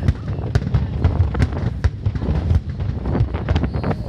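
Fireworks going off: a run of irregular sharp bangs and crackles, several a second, over the low rumble of wind on the microphone.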